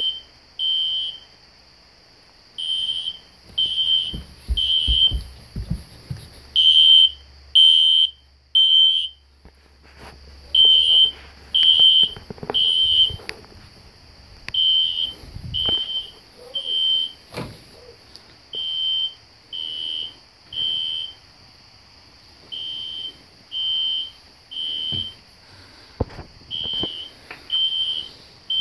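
System Sensor SpectrAlert Classic fire alarm horn sounding the temporal-three evacuation pattern: three short, high-pitched beeps about a second apart, then a pause, repeating about every four seconds.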